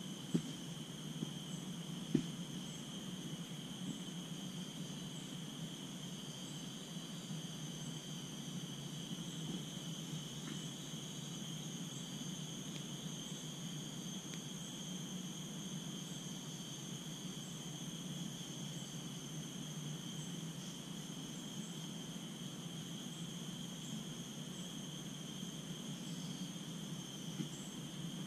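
Steady rainforest insect chorus, a constant high-pitched drone on two pitches, over a low steady hum. A few light footsteps on the leaf-litter trail in the first couple of seconds.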